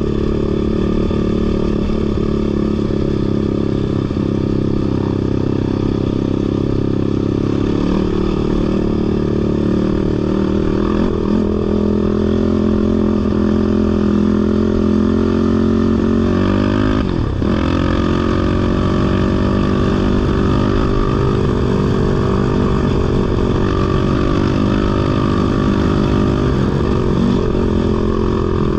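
Off-road vehicle's engine running under way, its pitch rising and falling with the throttle, with a brief dip about two-thirds of the way through.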